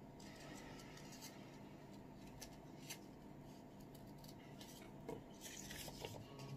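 Small plastic-handled craft scissors snipping through paper: faint, irregular snips, bunched together near the end.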